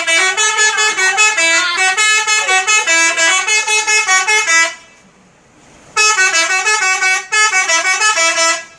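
A bus's telolet horn, a multi-tone musical air horn, playing a rapid jingle of short stepping notes. It breaks off for about a second near the middle, then starts again and stops just before the end.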